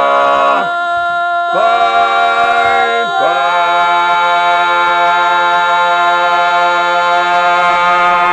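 Male barbershop quartet singing a cappella in close four-part harmony: a few quick chord changes in the first three seconds, then a long held final chord.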